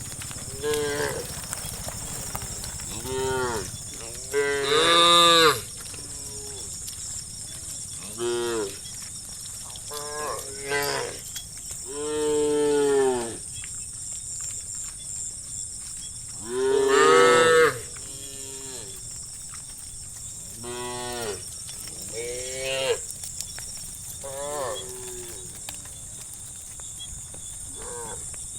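Cattle mooing repeatedly, about a dozen moos of varying length from several cows, each call swelling and falling in pitch. Two long, loud moos come about five seconds in and about two-thirds of the way through, with a steady high hiss behind.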